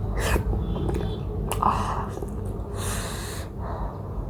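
Hard mouth breathing and a few wet mouth clicks from a person eating a hot, spicy momo, with her mouth burned by the heat. A high hissing breath comes about three seconds in.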